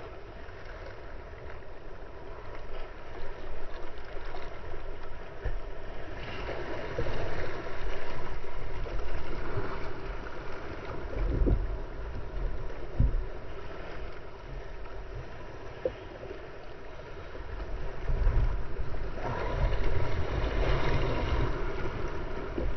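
Water splashing and sloshing around a kayak as a large group of sea lions swims and surfaces right alongside, with wind buffeting the microphone. The splashing swells about a third of the way in and again near the end, and a couple of short knocks come around the middle.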